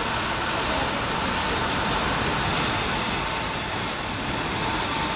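ČD class 460 'Tornádo' electric multiple unit rolling into the platform, with a steady high-pitched wheel squeal that starts about two seconds in and holds.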